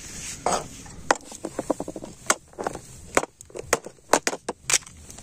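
Kitchen knife chopping raw chicken on a plastic cutting board: a series of sharp knocks, several in quick succession, then more spaced out.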